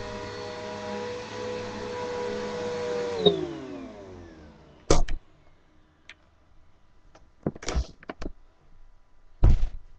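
Bissell PowerForce bagged vacuum cleaner running with a steady motor whine, switched off about three seconds in, its motor winding down with a falling pitch and fading out. A few sharp knocks follow.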